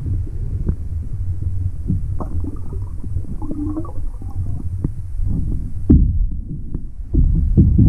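Muffled low rumble of stream water moving around a submerged camera, with scattered small clicks and knocks. A sharper knock comes about six seconds in, and about a second later the rumble grows louder.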